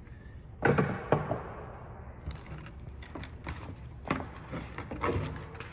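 Scuba wing and webbing harness with metal D-rings being moved about and set down on a wooden tabletop: a series of irregular knocks and light clatters, the loudest about a second in.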